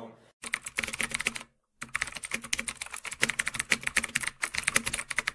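Rapid computer-keyboard typing clicks, a typing sound effect for on-screen text being typed out, with a brief stop about a second and a half in.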